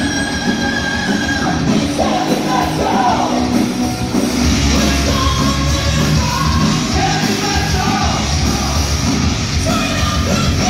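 Heavy metal band playing live: electric guitars, bass and drums, with a singer's yelled vocals over them. The low end grows heavier about four seconds in.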